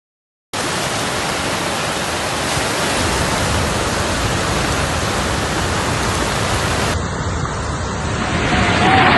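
Rushing floodwater: a steady, loud rush of noise that starts suddenly about half a second in. It changes at a cut about seven seconds in and grows louder near the end.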